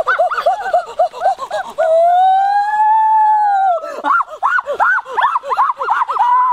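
A high-pitched voice laughing in quick rising-and-falling bursts, several a second, with one long squeal about two seconds in that rises and then falls in pitch before the quick laughing resumes.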